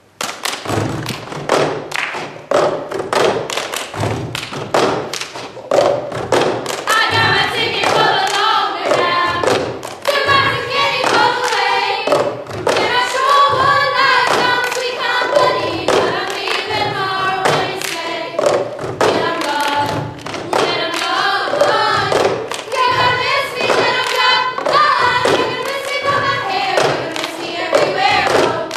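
Cup game rhythm: cups knocked and slapped on a tabletop, mixed with hand claps, in a steady repeating pattern. About seven seconds in, a group of girls starts singing in unison over the rhythm.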